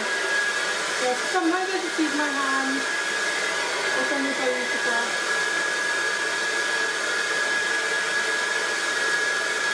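Handheld hair dryer running steadily on damp hair, a constant blowing rush with a steady high whine.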